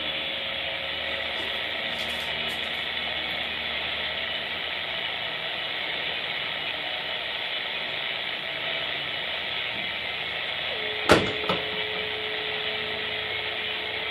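Steady CB radio static hiss, with a faint steady whistle near the start, a sharp click about eleven seconds in followed by a smaller one, and a new steady whistle at a slightly lower pitch.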